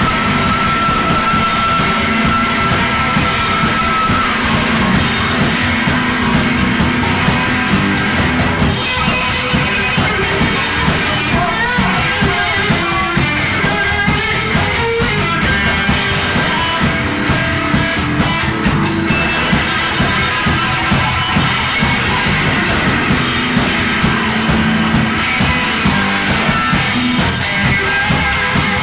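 Live rock band playing an instrumental passage, with electric guitar over bass and drums and a steady beat; one high note is held for about four seconds at the start.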